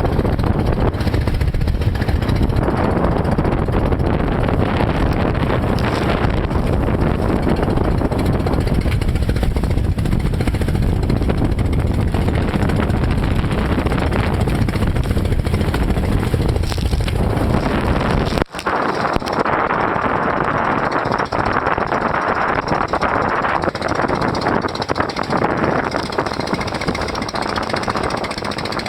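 Motorized banca outrigger boat under way through waves: the engine running under a loud, steady rush of wind and water noise. About 18 seconds in, the sound breaks off for an instant, and after that the deep rumble is weaker and the hiss higher.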